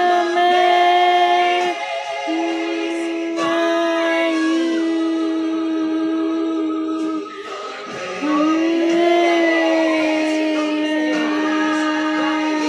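Music: singing voices holding long, steady notes, with short breaks about two seconds in and again around seven and a half seconds in.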